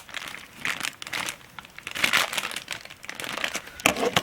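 Packaging crinkling and rustling in irregular bursts as accessories are handled and unwrapped, with a few sharp clicks.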